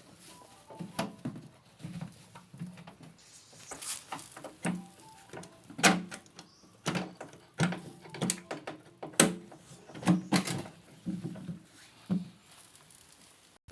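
Irregular knocks, clicks and clatter of hands and tools working on a front-loading washing machine's parts, with the two sharpest knocks about six and nine seconds in.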